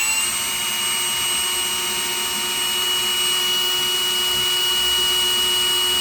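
Electric drill running at steady speed in rotary-only (non-hammer) mode, drilling into a brick with a Bosch multi construction bit: a steady, even whine with no hammering.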